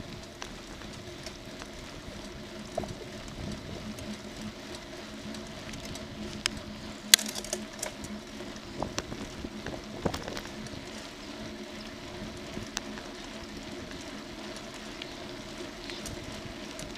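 Bicycle rolling along tarmac: steady tyre and road noise, with scattered sharp clicks and knocks from the bike over bumps. The loudest knock comes about seven seconds in.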